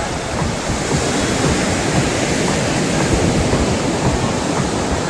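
Sea surf washing onto a beach: a steady, even rush of breaking waves, with wind buffeting the microphone.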